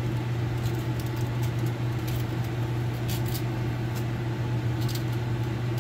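Steady low mechanical hum, like a fan or air-conditioning unit running, with faint scattered light clicks.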